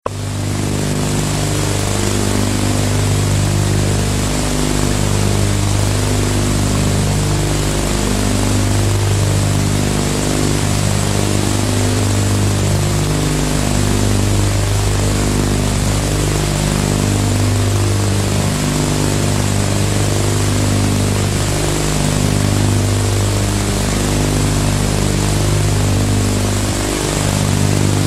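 Steady low droning tones that shift in pitch every second or so, over a constant hiss.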